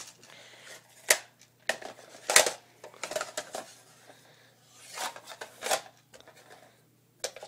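Airsoft rifle magazines being handled: a few separate clicks and knocks with some scraping, the sharpest about two and a half seconds in.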